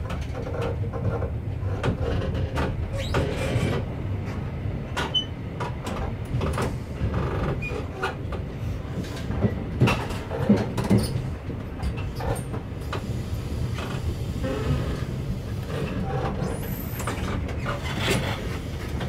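Passenger train running slowly into a station, heard from inside the carriage: a steady low running rumble with irregular clicks and knocks of the wheels over points and rail joints. A brief high squeal comes about three-quarters of the way through.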